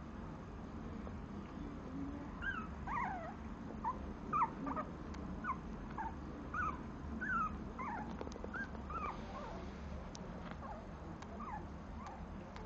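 Newborn puppy whimpering in a run of short, high squeaks, a dozen or more, starting a couple of seconds in and stopping about three-quarters of the way through.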